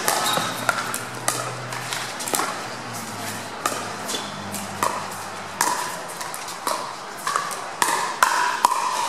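Pickleball rally: paddles striking a hard plastic ball back and forth, a sharp pock at each hit, coming one or two a second and faster in the second half.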